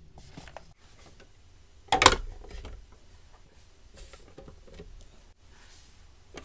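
Handling noises as a steelbook case is slid off a shelf and display pieces are moved: light clicks and taps, with one sharp clack about two seconds in.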